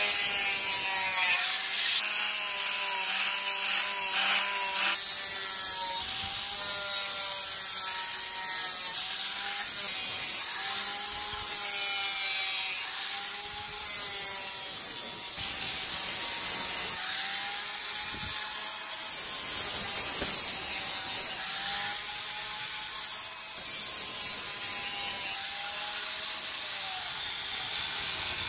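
Handheld angle grinder with an abrasive disc grinding the steel of a machete blade: a steady high whine with metal rasping against the disc, its pitch wavering up and down repeatedly.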